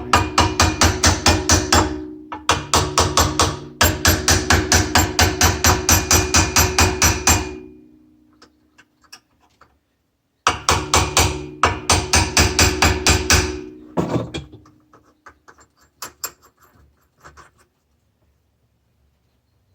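Impact wrench hammering the nut onto the secondary clutch sheave of a Yamaha Wolverine, in three long bursts of rapid blows with the metal sheave ringing underneath, then a few light knocks.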